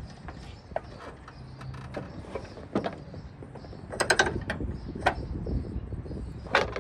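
Metal clicks, knocks and creaks from a lawnmower's deck and belt parts being worked by hand, with a quick run of sharp strikes about four seconds in and a louder knock near the end.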